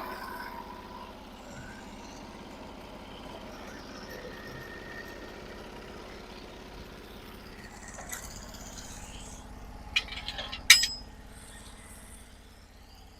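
Sawmill engine idling with a low, steady hum. About ten seconds in there are a few sharp knocks, the loudest coming near eleven seconds.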